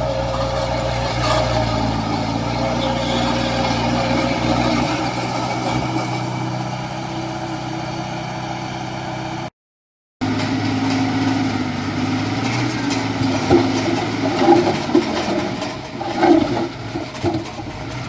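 Heavy diesel construction machinery running steadily, cut off abruptly about halfway through, then engine noise again with a few sharp knocks or clanks near the end.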